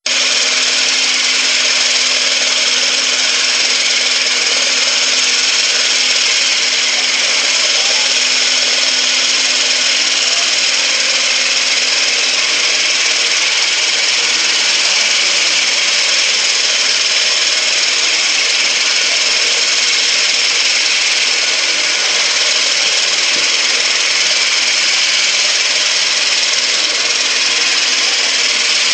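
Klindex Exterma stand-up concrete grinder-polisher with counter-rotating pucks, running steadily with a loud, even, hissing whir. A low steady hum underneath stops about twelve seconds in.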